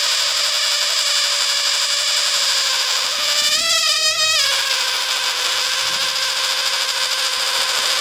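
Air forced through the vibrating folds of a larynx model, making a continuous buzzing, reedy tone. The pitch wavers about halfway through.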